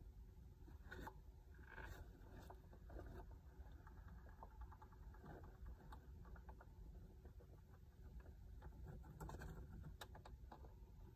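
Near silence: faint rustling and light scattered ticks as roosting hens shift and preen their feathers, over a low steady hum.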